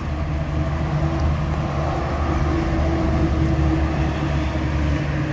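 An engine idling, a steady low drone that holds one pitch throughout.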